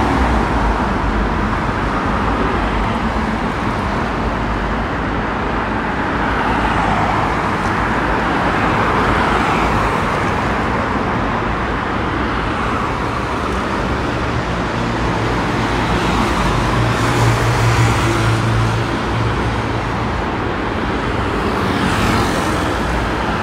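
Street traffic: cars and a city bus passing, a steady rush of engines and tyres. A low engine hum swells a little past the middle, and a motor scooter goes by near the end.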